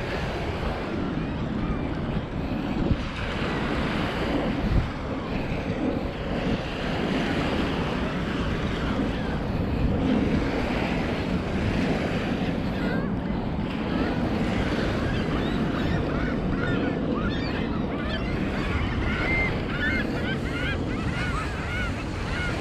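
Lake Michigan waves washing on the beach with wind buffeting the microphone, a steady rushing noise. Birds calling in short, repeated high calls through the last third.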